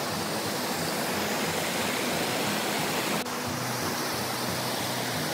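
Steady rush of a shallow rocky stream and the water running in a narrow stone canal beside it, with a brief break about three seconds in.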